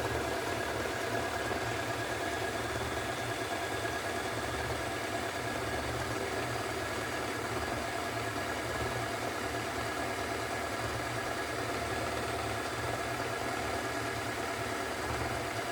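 Hoover Extra washing machine on its 1400 rpm spin, running steadily with a low rumble and a steady whine above it. The owner takes the sound for drum bearings that are nearly bad.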